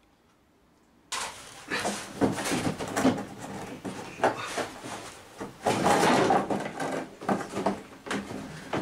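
Kia Carens's plastic rear bumper cover being pulled, prodded and twisted loose from its clips by hand: irregular rattling and scraping of plastic, starting about a second in.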